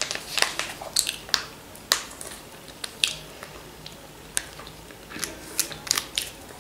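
Handling of a plastic squeeze pouch of red sauce: scattered short clicks and crinkles as the screw cap is opened, sauce is squeezed out onto the plate, and the cap is twisted back on.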